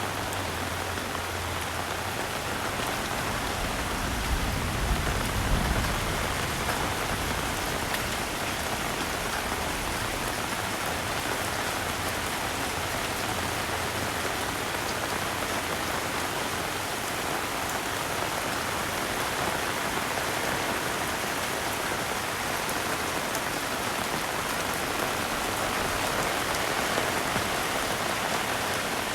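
Heavy rain falling steadily, a dense even hiss, with a few low thumps about four to six seconds in.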